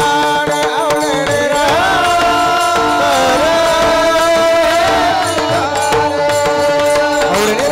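Marathi devotional abhang singing: a male voice holds a long, wavering, ornamented note on a vowel, over steady harmonium tones and hand-drum strokes.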